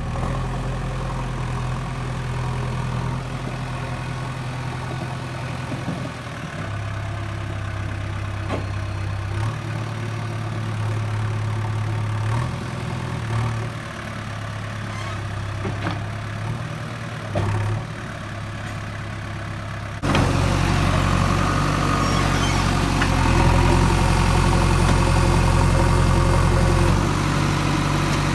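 JCB 3DX backhoe loader's diesel engine running under changing load, its note stepping up and down several times as the machine works, with a few light knocks. About two-thirds of the way through it turns suddenly louder and fuller.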